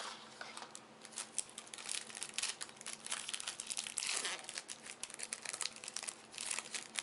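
Plastic wrapping on a pack of trading cards crinkling and tearing as it is pulled open by hand: a long run of dense, irregular crackles, busiest in the middle.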